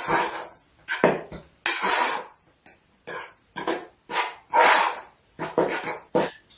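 Kitchen utensil scraping and knocking in a mixing bowl while dough ingredients are added and worked, about a dozen irregular scraping strokes.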